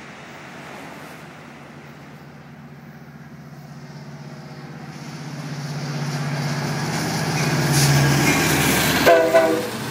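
Amtrak Pacific Surfliner's F59PHI diesel locomotive approaching and passing, its engine and wheels growing steadily louder. About nine seconds in its horn blasts, a loud chord of several tones.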